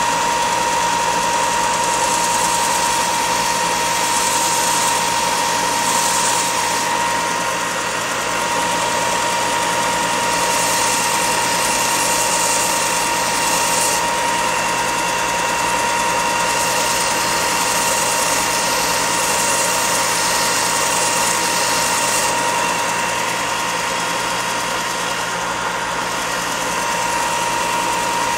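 Bench belt sander running steadily with a high motor whine, and several stretches of louder sanding hiss as the balsa frame of a model airplane's tail surface is pressed onto its coarse 60-grit belt.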